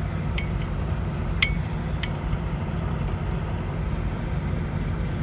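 Steady low hum of an idling truck engine, with three light metallic clicks in the first two seconds.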